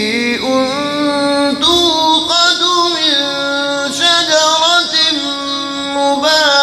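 A man's voice reciting the Quran in the melodic, drawn-out tajweed style, with long held notes that glide and waver up and down across several phrases.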